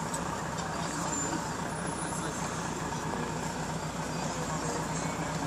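An engine running steadily, a low even drone, with faint voices around it.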